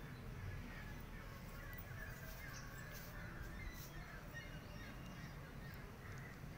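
Crows cawing faintly over a low, steady outdoor background, with a few brief clicks about two to four seconds in.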